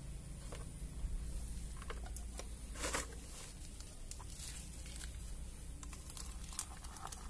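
Sticky clicking and tearing of tacky rubber-latex bird lime being worked with a wooden stick in a small tin can, with one louder rustle about three seconds in. The clicks come faster near the end as the stirring gets going.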